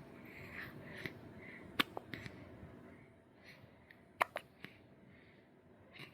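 Hiccups: two sharp, short hiccups about two and a half seconds apart, the first about two seconds in and the second just past four seconds.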